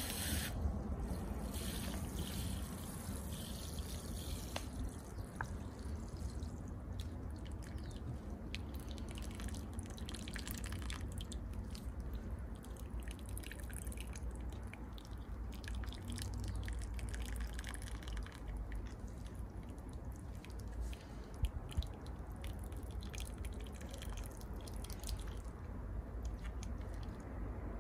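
Water from a garden hose spray nozzle spraying onto and soaking into the soil of a plant pot, with steady splashing and dripping.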